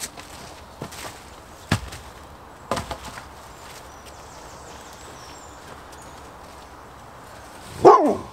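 Wooden poles knocking as they are set down on a pile, a few sharp knocks in the first three seconds, then a fox-red Labrador gives one loud bark near the end.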